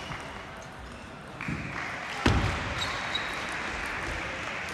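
Busy table tennis hall, a steady hum of background noise with scattered small clicks of balls being played. A single heavy thud with a booming ring sounds a little over two seconds in.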